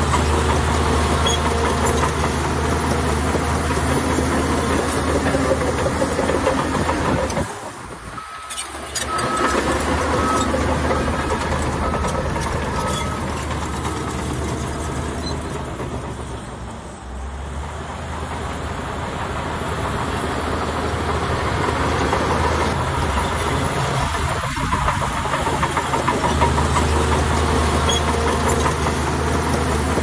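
Heavy construction machine's diesel engine running steadily, with a brief drop in level about a quarter of the way in. Just after the drop comes a run of short, evenly spaced high beeps.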